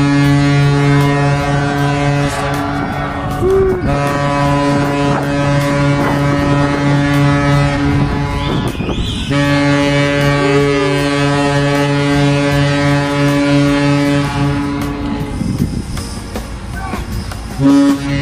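A ship's horn sounding three long, deep blasts of a few seconds each with short gaps between, and a fourth starting near the end: a farewell salute from a departing cruise ship. Voices of people along the rails are heard underneath.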